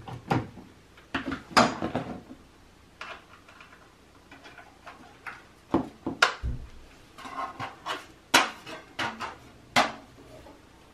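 Irregular clicks, clacks and knocks from a studio light panel, its stand and power cord being handled and plugged in, with a heavier knock about six seconds in.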